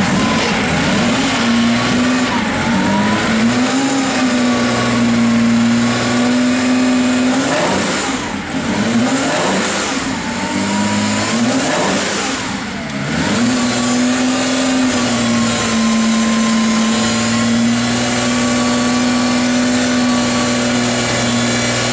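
Ferrari Daytona competition car's V12, fitted with silencers instead of its racing side pipes, running just after starting. It holds a steady raised speed with several blips of the throttle that rise and fall, around two to four seconds in and again between about seven and thirteen seconds in, then settles back to a steady run.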